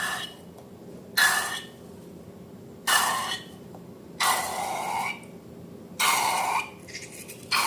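Slime being squeezed and pressed: five wet squelches, each about half a second to a second long, come roughly every one and a half seconds.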